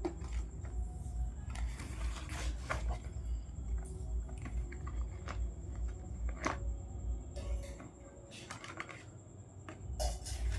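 Packaging of a new remote-control toy car being handled: scattered rustles and sharp clicks, over a low steady hum that drops away for a couple of seconds near the end.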